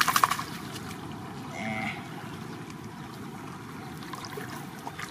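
Crackling rustle of dry straw at the start, then a steady outdoor hiss with one brief, short pitched call about two seconds in.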